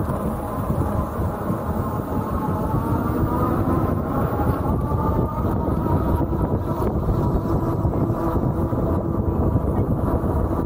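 Ariel Rider Kepler V2 electric bike ridden at a cruise: steady rushing wind and tyre noise with a faint, even motor whine.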